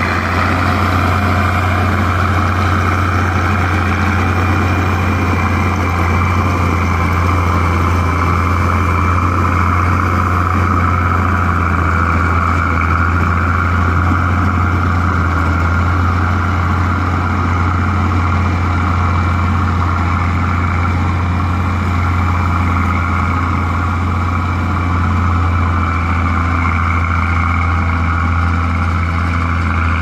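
Caterpillar motor grader's diesel engine running at a steady pitch: a deep, even drone with no revving.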